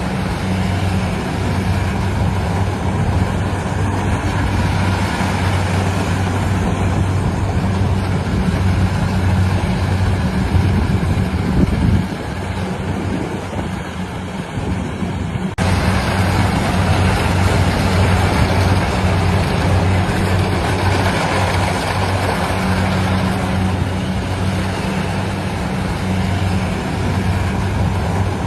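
Engine of a rice-harvesting machine running at a steady, even pitch with a constant hum. The sound dips slightly about twelve seconds in, then jumps back abruptly a few seconds later.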